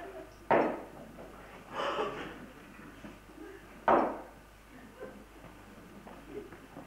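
Two sudden loud bangs, about three and a half seconds apart, each dying away within half a second, with a softer noise between them.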